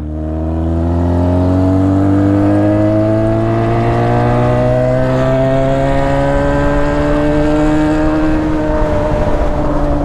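Yamaha FZ6 Fazer 600's inline-four engine, fitted with a straight pipe, accelerating in one long pull under load. Its pitch rises slowly for about eight seconds, then levels off and eases slightly near the end.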